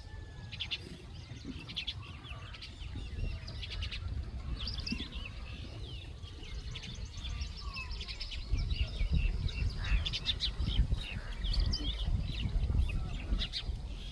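Birds chirping and calling in quick, short notes and trills throughout. A low rumbling noise grows louder about halfway through.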